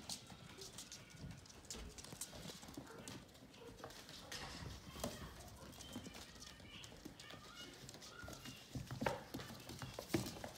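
Vizsla puppies' claws clicking and tapping on a hardwood floor as they scamper about, in an uneven scatter of light steps.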